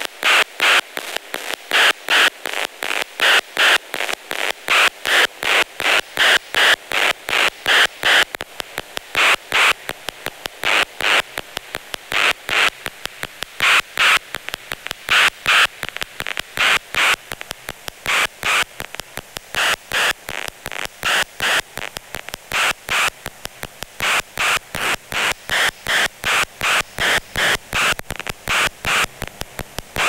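Twintropiques 23 Psychoacoustic synthesizer playing a steady rhythmic train of short, hissy noise pulses, about three a second, some accented much louder than others.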